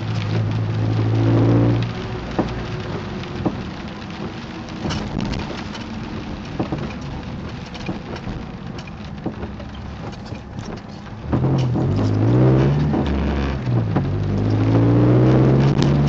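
Chevrolet Cavalier running, its engine pitch rising and falling at the start and again from about 11 seconds in. In between is a quieter stretch full of short clicks and crackles, the creaking noise the car has.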